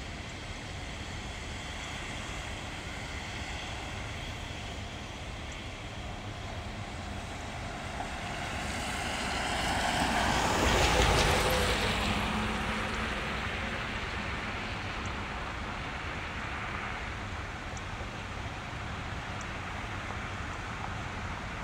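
Cars and pickup trucks driving through floodwater over the road, tyres splashing and hissing through the water over a steady low rumble. One vehicle passes close about halfway through, growing louder to a peak and then fading.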